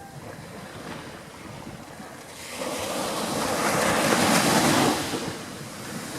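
Ocean waves: one wave washing in, a swell of surf noise that builds about two and a half seconds in, is loudest near the end, then fades.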